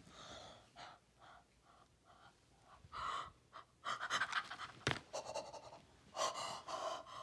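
A girl panting in short, breathy gasps, spaced out at first and then louder and faster, with a single sharp knock just before five seconds in.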